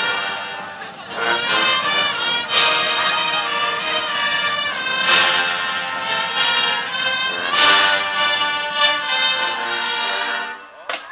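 Marching band's brass section playing held chords, accented by a loud hit about every two and a half seconds. The music fades away just before the end.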